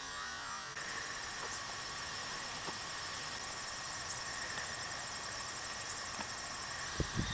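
Background music cuts off under a second in, leaving outdoor ambience: a steady chorus of insects such as crickets over a constant low rumble and hiss. A few short low thumps come near the end.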